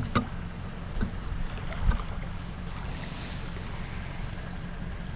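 Wind rumbling on the microphone, with a few small knocks about one and two seconds in and a brief hiss of a gust about three seconds in.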